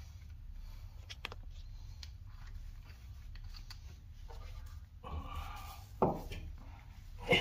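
A new CV axle being worked into the front hub and knuckle of a Honda Civic: a few light clicks, then two sharp knocks near the end as the shaft's end is pushed and tapped into place. A low steady hum runs underneath.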